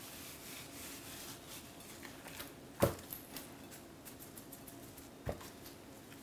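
Dry spice rub shaken from a shaker onto a raw ribeye: a faint patter of granules, with a sharp knock nearly three seconds in and a softer one a little after five seconds as the steak and shaker are handled on the plate.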